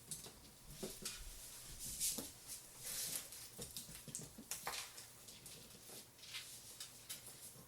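Scattered light clicks, taps and rustling of hands handling PC parts and a computer case during assembly.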